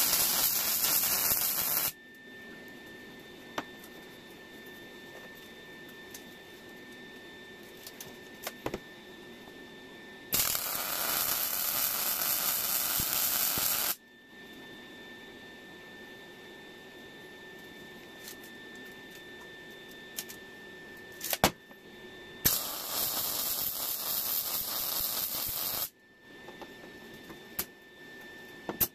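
Lincoln Electric 180 wire-feed (MIG) welder tack-welding steel rail: three bursts of arc crackle and hiss, each about three to four seconds long. The first ends about two seconds in, the second comes about ten seconds in and the third about twenty-two seconds in. Between the welds there is a faint steady whine and a few clicks.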